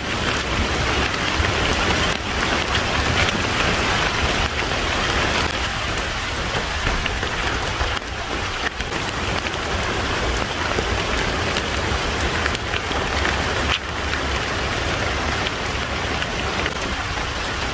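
Steady rain falling and pattering on hard surfaces.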